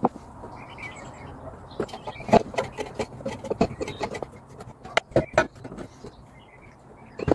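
Irregular small clicks and knocks of hand tools and screws being worked on a cordless site radio's metal guard rails, bunched between about two and five and a half seconds in.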